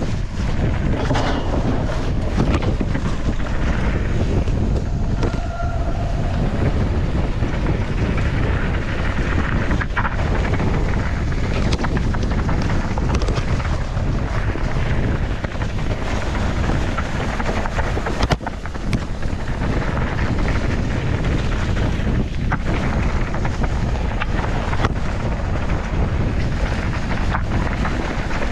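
Wind buffeting an action camera's microphone at downhill mountain-bike speed, over a steady rumble of knobby tyres on a dry trail, with frequent short knocks and rattles from the bike.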